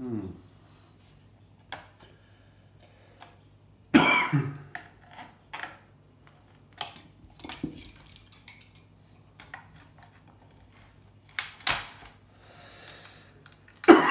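Metal hand tools, pliers and screwdrivers, clicking and clinking against each other and against a circuit board as components are worked off it, in scattered short knocks with one louder, sharper noise about four seconds in.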